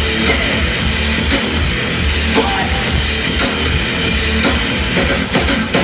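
A live rock band playing an instrumental stretch of the song, with heavy drums, distorted guitar and a pulsing bass beat.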